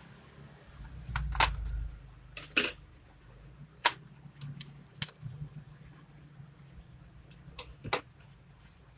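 A series of sharp clicks and taps, about seven of them and irregularly spaced, the loudest in the first four seconds: a Lenovo G470 laptop's plastic case and parts being handled and tools set down as it is taken apart.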